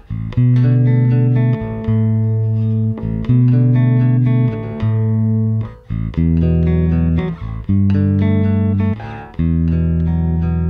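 Modern Vintage MVJ4-66 jazz-style electric bass played in chords: several notes ring together, each chord held about a second before the next, with short breaks between phrases.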